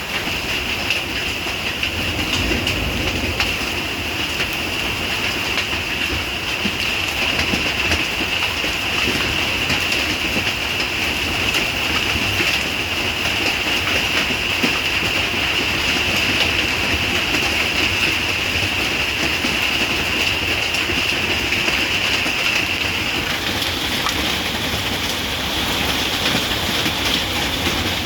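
Heavy rain falling steadily: a dense, even hiss of drops striking surfaces.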